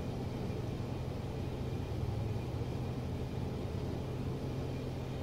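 Steady low hum with faint hiss, the background noise of an old lecture recording during a pause in speech.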